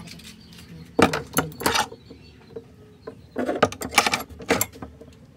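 Metal hand tools clinking and jangling against one another in two bursts, the first about a second in and the second from about three and a half seconds in.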